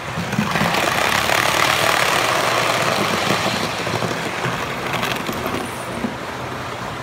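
HO-scale model train running past close by: the hum and rumble of its motor and wheels on the track swell about half a second in, then fade away over the next few seconds as it passes.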